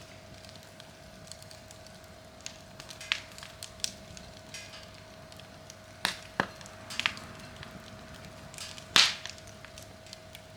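Wood fire crackling, with scattered sharp pops; the loudest pop comes about nine seconds in.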